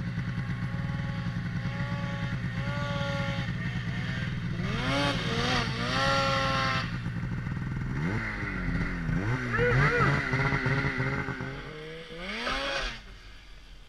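Snowmobile engine running steadily, then revving up and down several times as the sled rides through powder; the engine sound falls away sharply near the end.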